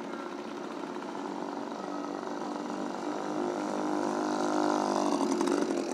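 Small motorcycle engine running steadily, growing louder as it comes close and passes, loudest about five and a half seconds in.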